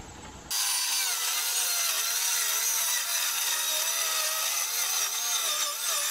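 DeWalt cordless circular saw cutting through a sheet of 3/4-inch plywood, starting suddenly about half a second in. The motor's pitch wavers up and down as the blade loads in the cut.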